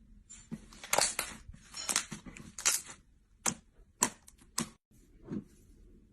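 Close-up crisp crackling: a few short clusters of rapid crackles, then four or five single sharp cracks about half a second apart.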